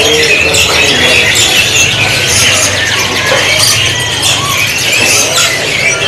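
Canary singing: a fast, unbroken warble of high chirps and trills.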